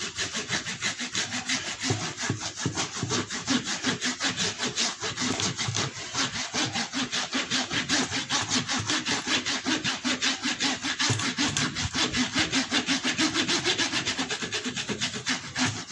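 A dry flannel cloth rubbed fast back and forth along a taut old-coin jewellery chain, which lies on a wooden bench, as the final polish after polishing compound. It makes a steady rasping swish at about five strokes a second.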